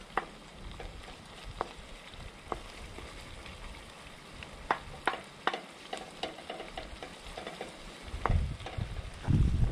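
Pieces of catfish frying in a pan, with a utensil clicking against the pan a handful of times as they are stirred. A low rumble comes in near the end.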